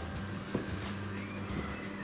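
Background music with steady held tones, and a single faint click about half a second in.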